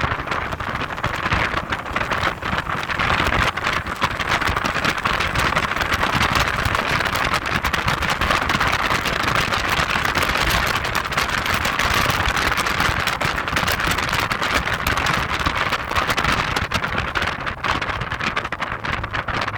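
Heavy wind noise buffeting the microphone of a moving Audi TT Quattro 225 roadster, a steady loud rush.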